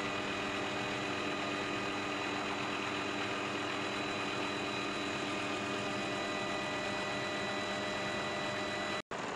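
Helicopter engine and rotor noise heard from inside the cabin: a steady rushing drone with constant whining tones, broken by a momentary dropout near the end.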